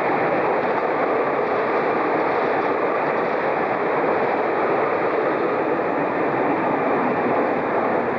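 InterCity passenger coaches rolling past on the rails, a steady, unbroken noise of wheels on track.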